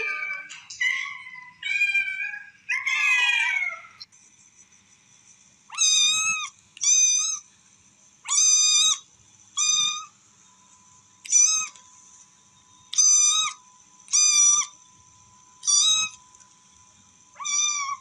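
Kittens meowing. First come a few falling meows. From about six seconds there is a run of nine short, high-pitched meows, each held on one note, coming about every second and a half, like a kitten calling for its mother.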